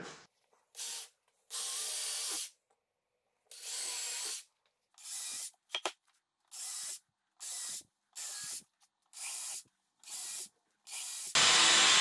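Cordless drill pre-drilling pilot holes into a wooden table leg for the connector hardware's screws: about a dozen short drilling runs, each a second or less, separated by silence, the last one loudest.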